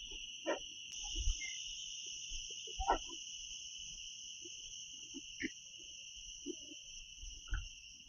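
Steady high-pitched drone of forest insects, in two unbroken pitches, with scattered soft thumps and taps of footsteps on a muddy dirt track.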